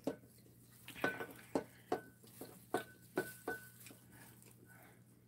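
Metal spoon clinking lightly against a small ceramic bowl about eight times, each a short tap with a brief ring, while food is spooned from the bowl.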